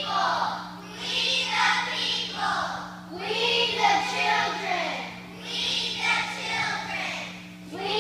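A group of children singing together in phrases of a second or two each, over a steady low hum.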